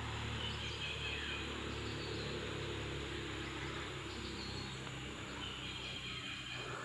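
Faint outdoor background: a low steady hum under insect noise, with a few faint bird chirps.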